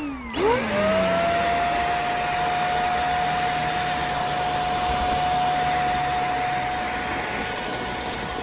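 CFBF handheld mattress vacuum cleaner switching on: its motor whine rises and settles to a steady pitch within about a second, then it runs steadily with a rushing air sound.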